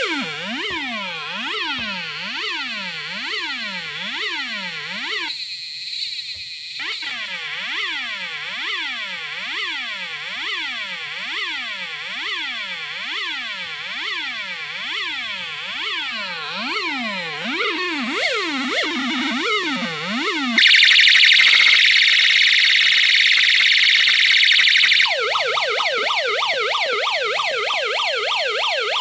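Electronic 16-sound siren module running through its siren tones. First comes a fast rising-and-falling wail of about two sweeps a second, with a short break a few seconds in. About two-thirds through it switches to a louder high-pitched tone, and near the end to another fast up-and-down sweep.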